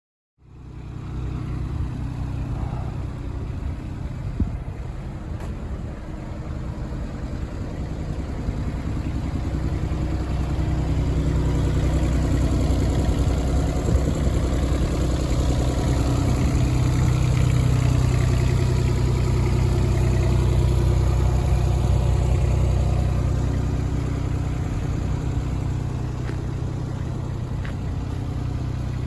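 Kubota U27-4 mini excavator's diesel engine running steadily. It gets louder about a third of the way in, holds there, and eases back down near the end.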